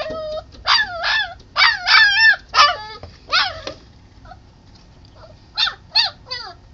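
Puppy whining and crying in high cries that waver in pitch, several in quick succession, then a pause of about two seconds before a few more near the end: crying to be let inside.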